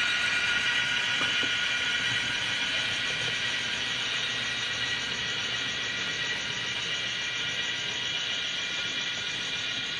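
HO-scale Märklin model freight train of coal-loaded wagons rolling along the track, a steady rolling noise that slowly fades as the train moves on.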